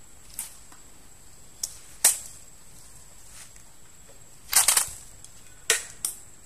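A short sharp crack about two seconds in, the loudest sound, fits a fish-dart rifle being fired. A quick run of snaps and crackles follows near the middle, and two more cracks come near the end, as dry bamboo and sticks are stepped on and broken.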